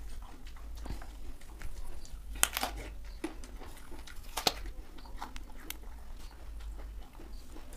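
A person biting into and chewing a raw apple, with sharp crunching clicks; the two loudest come about two and a half and four and a half seconds in, over a steady low hum.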